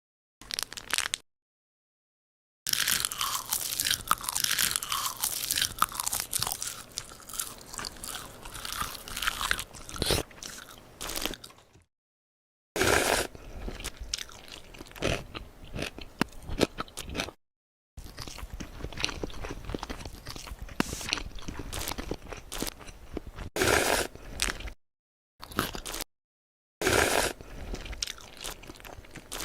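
Close-miked crunching bites and chewing of crunchy food, in several stretches broken by sudden dead silences.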